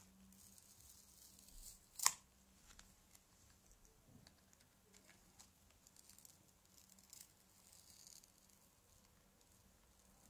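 Faint scraping and handling noise as a small screwdriver pries the LCD screen protector off a plastic SJ4000 action camera, with one sharp click about two seconds in and a few lighter ticks after it.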